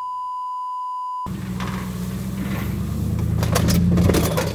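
A steady high beep tone, about a second and a half long, that cuts off abruptly: a censor bleep. It is followed by a steady low hum with noise over it that grows louder.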